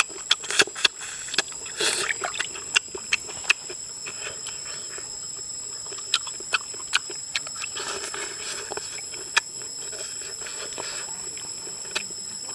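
Close-up eating sounds: wet chewing and lip smacks on a cooked river prawn, with sharp clicks scattered throughout. A wooden ladle then scrapes and knocks in a metal wok of sour soup, over a steady high-pitched whine.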